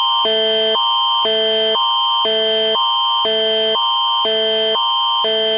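Canadian Alert Ready attention signal: a loud electronic alert tone that alternates every half second between a higher and a lower chord over a steady high tone, announcing an emergency alert message.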